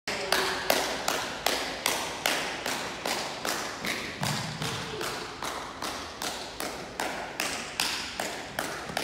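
A steady, even beat of sharp thuds on a hardwood gym floor, about two and a half a second, each ringing briefly in the hall.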